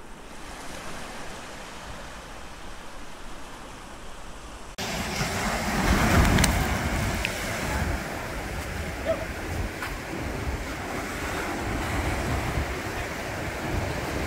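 Ocean surf washing over rocks and sand, with wind rumbling on the microphone. The sound is quieter at first, then jumps louder at a cut about five seconds in.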